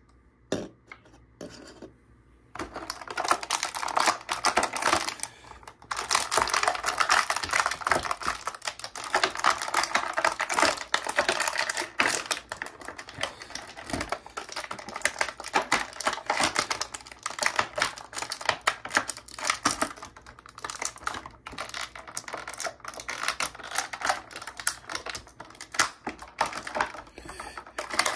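Dense, rapid crackling and clicking of plastic packaging being handled, starting about two and a half seconds in after a few faint taps.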